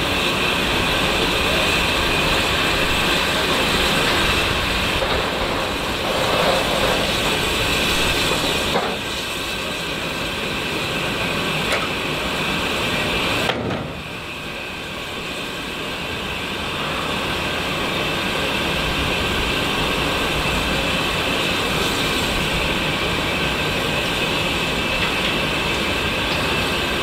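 Steady rushing noise of a steam railway train, with a sudden drop in level just under halfway through that builds back up over a few seconds.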